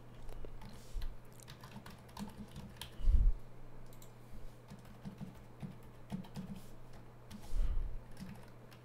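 Typing on a computer keyboard: irregular key clicks as text is entered, with two louder dull thumps, about three seconds in and near the end, over a steady low hum.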